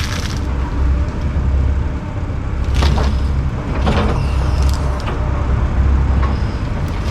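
Heavy diesel land-clearing machinery running with a steady low drone. Sharp cracks of wood and brush breaking come about three seconds in and again around four seconds.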